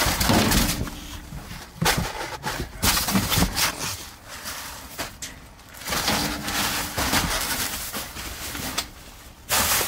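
Plastic wrapping and cardboard boxes rustling and crackling as they are rummaged through by hand, uneven and stop-start, with a few sharp knocks.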